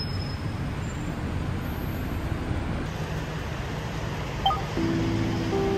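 Steady rumble of city street traffic, with a brief clink about four and a half seconds in. Background music with sustained tones comes in near the end.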